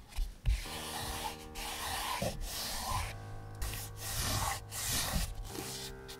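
Masking tape being unrolled along the edges of a stretched canvas and rubbed down by hand: about five papery rubbing strokes, each half a second to a second long.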